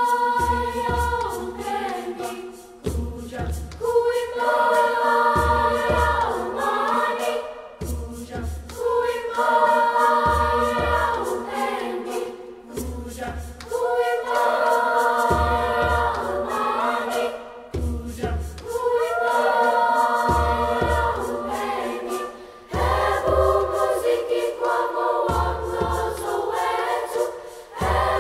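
Sixth-grade school choir singing in parts, with deep accompaniment notes recurring about every two and a half seconds under the sung phrases.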